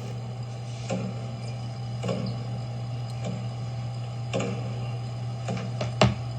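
A steady low hum with soft clicks or taps about once a second, and one sharper knock near the end.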